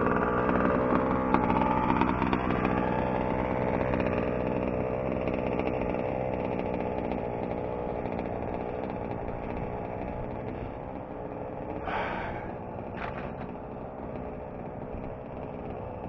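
Small two-stroke engine of a 1/5-scale gas RC truck running, its pitch wavering over the first few seconds, then holding steady as it slowly fades. Two brief rustling noises about twelve and thirteen seconds in.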